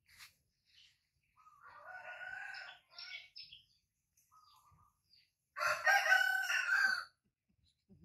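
A rooster crowing twice, a quieter crow about a second and a half in and a louder, nearer one about two seconds before the end.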